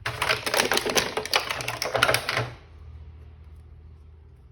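Plastic toy packaging being handled and opened, crinkling and crackling in a dense run of sharp clicks for about two and a half seconds, then stopping.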